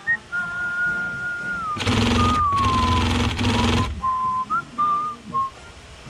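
A person whistling a melody, while an industrial sewing machine stitches webbing in three short runs from about two seconds in to about four seconds, the loudest sound here.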